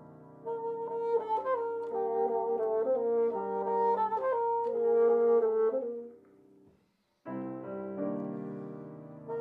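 Two bassoons and a piano playing a chamber piece. The bassoons enter about half a second in with sustained, moving melodic lines over the piano. The music dies away to a brief silence near seven seconds, then all three re-enter together.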